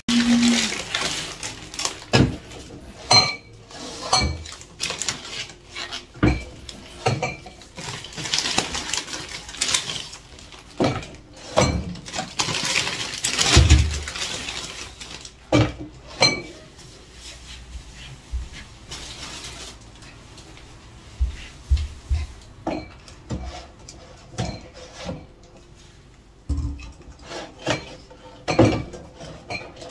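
Kitchen things being handled and put away: irregular knocks, clinks and clatter of dishes and kitchenware, with a few longer rustling stretches between them.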